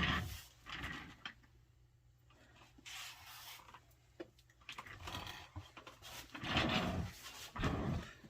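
Handling noises: several short bouts of rubbing and rustling as small objects are shifted about, with a sharp click about four seconds in.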